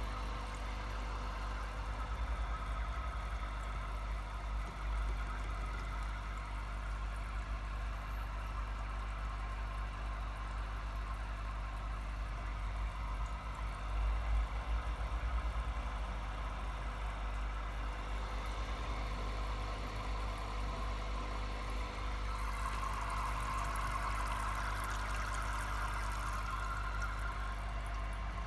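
Steady low hum of an aquarium air pump, with the bubbling of an air-driven sponge filter. About 22 seconds in, the bubbling grows louder and hissier.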